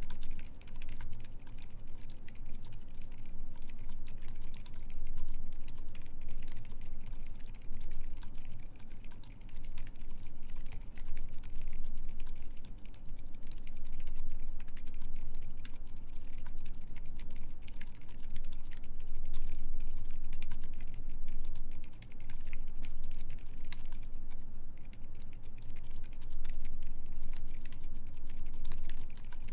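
Continuous fast typing on a Keycult 2/65 mechanical keyboard with lubed Silent Alpaca silent linear switches, GMK keycaps and an aluminium plate: quiet, muted keystrokes, with a brief pause about twenty-two seconds in.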